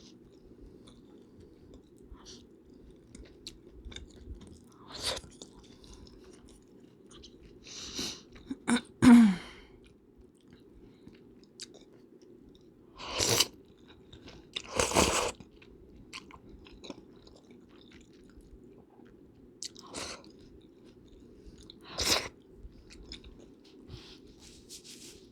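Close-miked eating: chewing and mouth noises in a handful of short separate bursts, the loudest about nine seconds in, over a steady low background noise.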